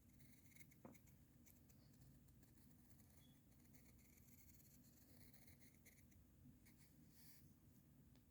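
Faint, irregular scratching of strokes being drawn on paper, with a small click about a second in.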